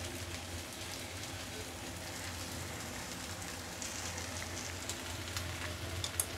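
Stir-fried noodles and sausage sizzling steadily in a wok, a soft even crackle over a low steady hum, with a few light clicks near the end.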